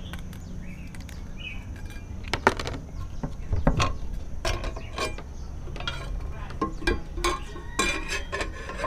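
Scattered clinks and knocks of metal parts handled while a new blade is fitted to a 7-inch circular saw, starting about two and a half seconds in and coming thicker near the end, over a steady low hum.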